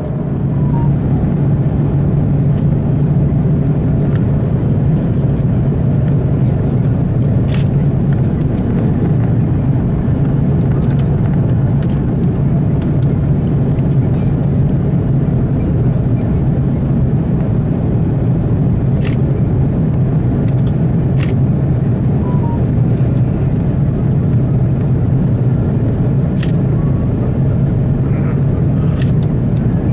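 Steady cabin noise inside an Airbus A330-300 airliner: engine and airflow rush over a constant low hum, with a few faint clicks.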